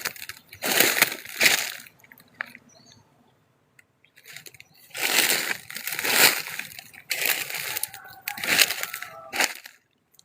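Rustling and crunching of dry leaves and undergrowth underfoot and against the body as someone pushes along an overgrown forest path, in several uneven bursts with a short lull about a third of the way in.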